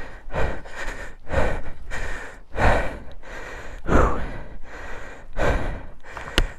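A man panting hard, a rapid run of heavy breaths in and out, the strongest every second or so, from the exertion of heaving a fallen motorcycle back upright.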